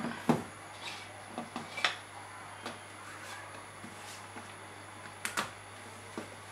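Scattered light clicks and knocks of hands handling audio cables, plugs and the control knobs of a small amplifier board on a desk, the loudest just after the start and a close pair about five seconds in, over a faint steady low hum.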